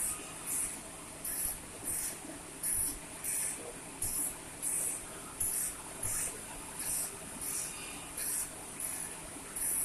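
Regular short bursts of hiss, about three every two seconds, over a steady low background.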